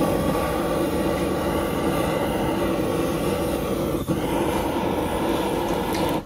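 Handheld butane blowtorch burning steadily with a loud, even roar as it lights the charcoal in a tabletop Korean barbecue grill. There is a brief dip about four seconds in, and it cuts off at the very end.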